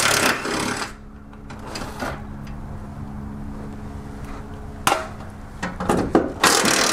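Compact cordless impact wrench hammering the bolts of a car's engine underbody shield loose, in a loud burst of about a second at the start and another near the end, with a quieter stretch and a single sharp click between.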